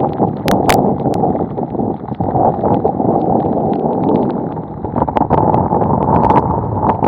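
Heavy rain with wind buffeting the microphone, a loud steady rush full of scattered drop taps, with two sharp taps about half a second in.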